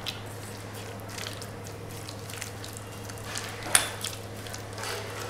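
A hand kneading and squeezing thick, wet lentil-paste batter with chopped onion in a stainless steel bowl: faint soft squelches, with one sharp click about two-thirds of the way in. A steady low hum runs underneath.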